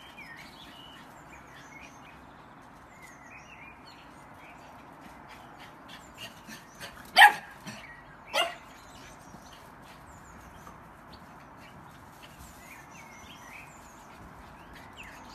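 Pug barking twice, two short barks a little over a second apart about halfway through.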